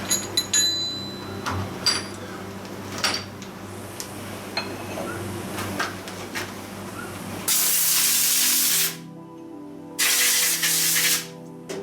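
Two bursts of compressed air from a blow gun, each about one and a half seconds long, blowing chips and coolant off a freshly milled workpiece. Before them, metal clicks and knocks over a steady low workshop hum.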